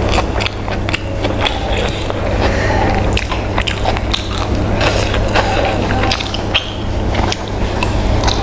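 A person biting and chewing food close to the microphone, with many short clicks of mouth sounds, over a steady low hum.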